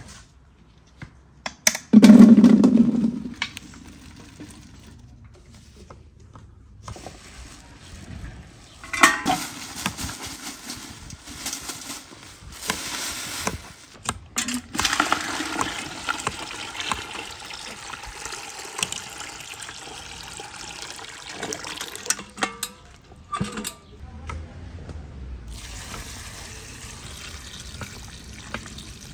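A heavy thump as a bucketful of watermelon rind cubes is tipped into a large aluminium pot, then a long stretch of water running and splashing, and near the end a milky liquid pouring steadily over the cubes in the pot.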